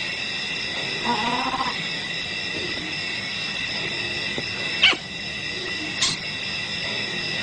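Leopard giving a short growl about a second in, over a steady chorus of night insects. Two sharp, high squeaks stand out: the louder comes about five seconds in, the other a second later.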